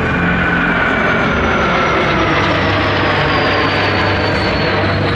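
Turbojet engines of four Fouga Magister jets (twin Turbomeca Marboré) flying overhead in formation: a loud, steady jet noise with a high whine that slowly falls in pitch.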